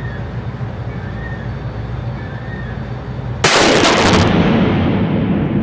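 A single shot from a Barrett M107 .50 BMG rifle about three and a half seconds in: a sudden, very loud blast whose echo rings on in the indoor range for a couple of seconds, over a steady background hum.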